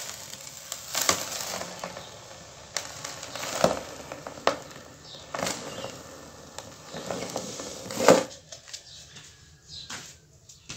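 Sand-and-cement chunks crumbling and falling into a plastic tub: about five crunchy impacts with a gritty hiss of falling powder between them. The loudest comes about eight seconds in, and it is quieter after that.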